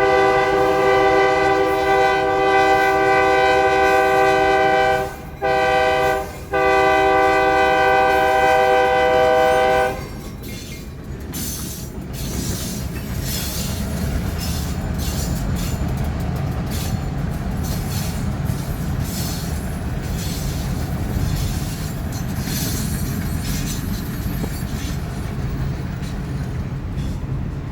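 Great Lakes Central diesel locomotive's multi-tone air horn blowing a long blast, a short one and another long one, the end of a grade-crossing signal; the horn cuts off about ten seconds in. Then the train passes with a steady rumble and the clickety-clack of wheels over rail joints.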